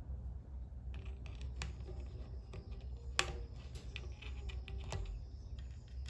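Irregular light clicks and taps, the sharpest about three seconds in, over a low steady hum.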